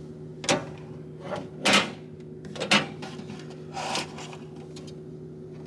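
About five short clunks and scrapes, like a drawer or small door being opened and closed, over a steady low hum.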